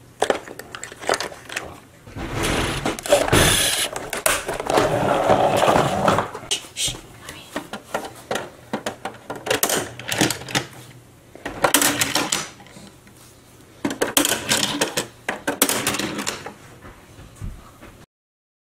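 Die-cast toy cars and plastic toy parts clicking and rattling as they are handled, slotted into a plastic carrying case and pushed across a table, in a quick run of irregular clicks.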